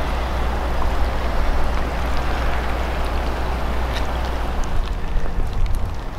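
Swollen floodwater of a river rushing steadily, with a steady low rumble underneath.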